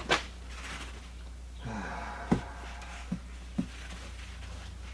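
Items and packaging being handled during an unboxing: a sharp click, then a few light knocks about a second apart, over a faint steady hum.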